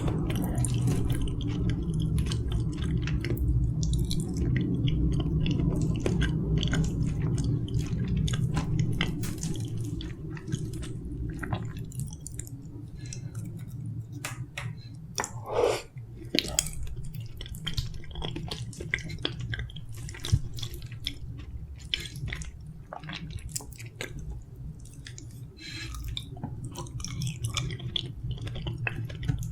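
Close-miked chewing of soft steamed kabocha (sweet pumpkin), full of small wet mouth clicks, with one louder smack about halfway. Under it runs a steady low rumble, the noise of construction work, which eases about twelve seconds in.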